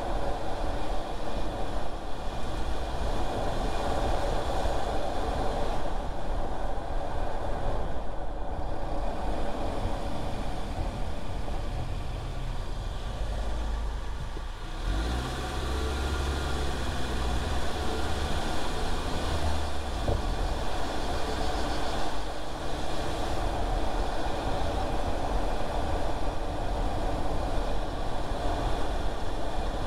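Car driving along: steady engine and road noise with a low rumble. It dips briefly about halfway through, after which a low engine hum comes up for a few seconds.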